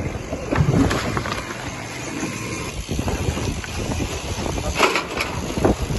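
Sea water sloshing and splashing against a sailboat's hull, with wind on the microphone and a few short sharp splashes, the strongest about five seconds in.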